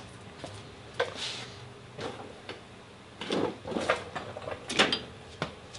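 Scattered knocks, clicks and clatter of tools and parts being handled in a workshop, with a few sharper clicks near the end.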